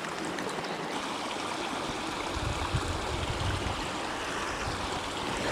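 Water running steadily, like a small stream trickling. A low rumble joins in about halfway through for a second or so.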